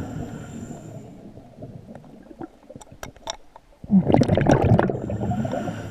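Scuba diver breathing through a regulator underwater: a burst of burbling exhaled bubbles with the regulator's thin hiss fades over the first second, a quieter gap with a few clicks follows, then another loud burst of bubbles starts suddenly about four seconds in.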